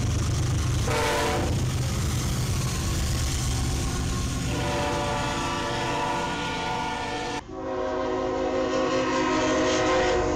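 Diesel freight locomotive air horns sounding over the rumble of trains passing close by. A short blast comes about a second in and a long blast from about four and a half seconds. After an abrupt cut, a second, lower-pitched horn sounds to the end.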